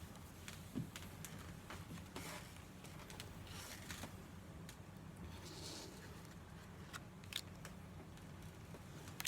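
Faint handling of Pokémon trading cards: scattered soft clicks and a few brief slides as cards are flipped through, over a low steady room hum.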